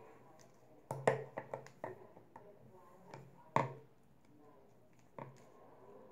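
Sharp clicks and taps from a Conair curling iron being handled and its spring clamp worked. There is a quick cluster of clicks about a second in, a louder single click past the middle, and one more near the end.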